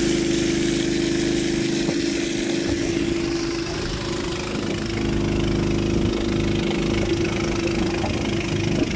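An engine running steadily with an even hum, under the hiss of water jetting from a duck-bill spray nozzle in a wide fan onto a dirt road.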